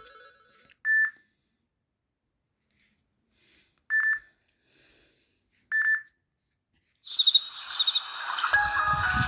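Samsung Galaxy S3 notification sounds: a short, high single beep plays three times, a few seconds apart. About seven seconds in, a new chiming ringtone melody with quick high notes starts.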